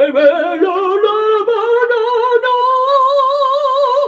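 A man singing in an operatic style into a handheld karaoke microphone, holding one long high note with a wide vibrato that steps up in pitch about half a second in.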